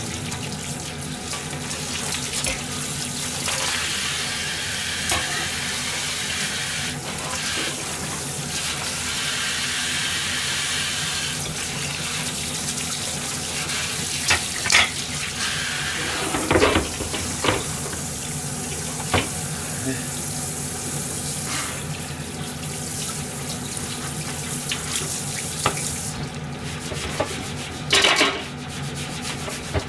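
Kitchen tap running into a stainless steel sink while a kitchen knife and a plastic tray are rinsed, with a few knocks and clatters of things against the sink. The water stops near the end, followed by louder knocks as a plastic cutting board is handled in the sink.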